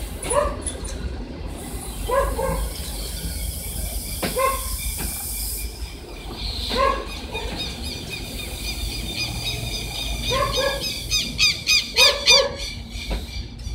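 Passenger railway coaches rolling slowly past on their arrival at the station, with a steady low rumble. Short animal calls sound every couple of seconds over it, some in pairs, and a quick run of high chirps comes near the end.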